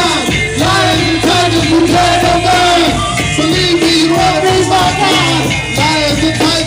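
Loud hip-hop backing music played live over a PA: a steady bass under a short melodic, voice-like phrase that repeats over and over.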